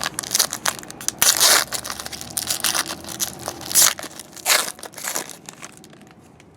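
Crinkly plastic or foil trading-card pack wrapper being torn open and crumpled, in irregular rustling bursts with the loudest crackles about a second in and again around four seconds in.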